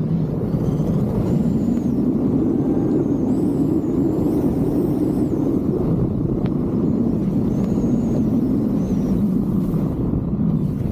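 Steady, loud wind rush buffeting the microphone of a helmet-mounted camera while its wearer rides fast down a snow slope, mixed with the hiss of sliding through the snow.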